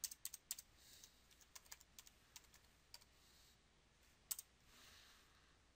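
Typing on a computer keyboard: a quick, uneven run of key clicks over the first three seconds, then a couple more clicks a little after four seconds.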